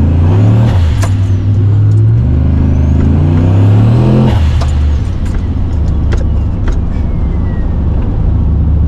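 Turbocharged Chevrolet Silverado pickup accelerating hard. The engine note climbs and drops twice as the transmission shifts up, then settles into a steadier drone after about five seconds.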